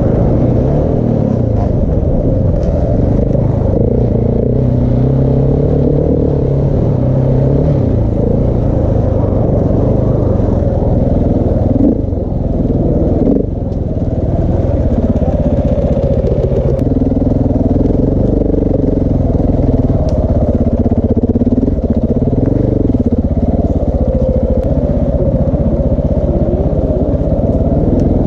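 KTM 690 Enduro R's single-cylinder four-stroke engine, fitted with a Wings exhaust and large dB killer, running hard on and off the throttle, its pitch rising and falling continually. The throttle backs off briefly twice near the middle.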